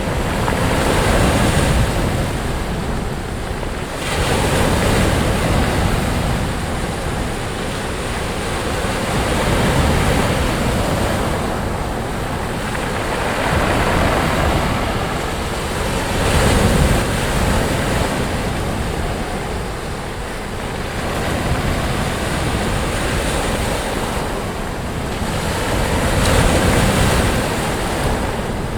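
Sea waves breaking and washing up on a sandy beach: a continuous surf noise that swells and eases every few seconds as each wave comes in and draws back.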